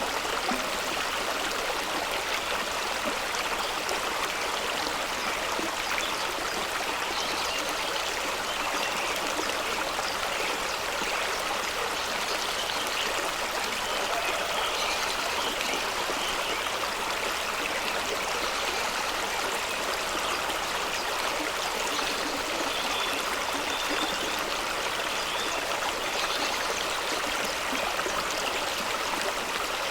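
Fast-running stream rushing over rocks in a small waterfall, a steady, even rush of water.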